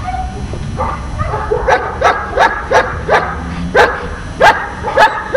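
A dog barking in a quick run of short, sharp barks, about two to three a second, beginning about a second and a half in, over a low rumble.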